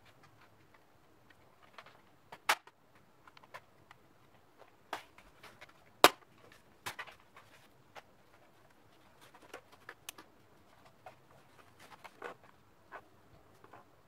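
Plastic body of an HP 15 laptop being pried apart and pressed by hand: an irregular series of sharp clicks and snaps as the cover's plastic locking clips give, the loudest about six seconds in.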